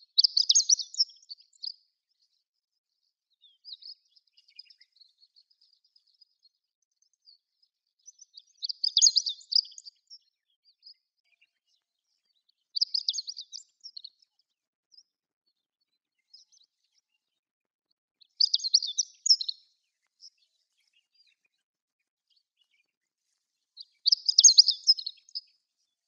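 Chestnut-eared bunting (Emberiza fucata) singing: five short song phrases, each a quick, high jumble of notes lasting about a second and a half, repeated every few seconds.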